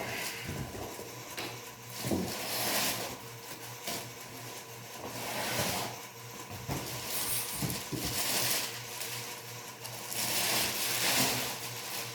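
Packing material rustling in repeated swells every two to three seconds, with scattered light knocks, as a crate is unpacked.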